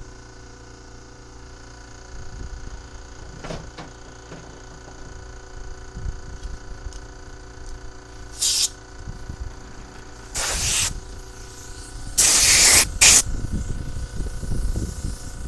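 Four short hissing spray blasts at a carburetor being cleaned out, coming in the second half, a second or two apart; the third is the longest and loudest, and the last is very brief.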